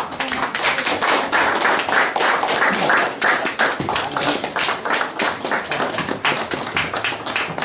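A group of people applauding, starting suddenly and carrying on steadily.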